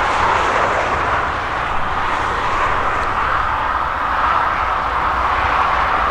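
Heavy harvest machinery running with a steady, loud drone.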